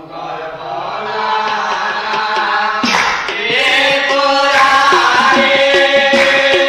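Nagara naam ensemble: a chorus of voices holds the sung refrain, and about three seconds in the drums and cymbals strike up a steady beat under it.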